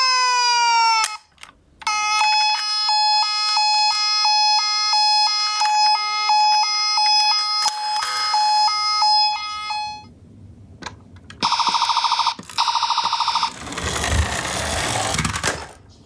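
Toy police van's electronic siren sound effects: a falling wail that stops about a second in, then a two-tone siren stepping back and forth between two pitches for about eight seconds. It is followed by two short buzzing tones and a rushing noise near the end.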